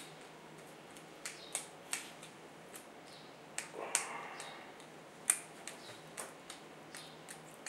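Scattered small clicks and ticks of a hex (Allen) screwdriver backing an M3 screw out of a plastic 3D-printer extruder block, the parts knocking lightly in the hands, with a brief rustle of handling about four seconds in.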